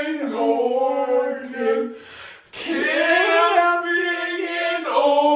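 Wordless singing with no accompaniment: long held notes that waver and slide in pitch, in two phrases with a short break about two and a half seconds in.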